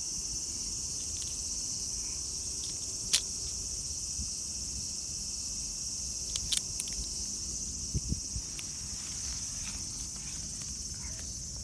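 Steady high-pitched chorus of singing insects, with a sharp click about three seconds in and a few small ticks and a soft thump later.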